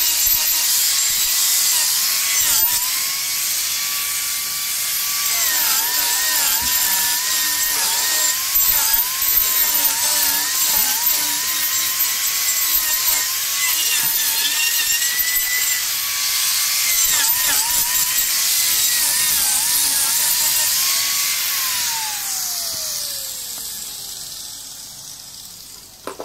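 Hand-held electric angle grinder grinding into wood, its high whine dipping in pitch again and again as the disc bites under load, over a steady hiss of abraded wood. Near the end it is switched off and the whine falls away as it spins down.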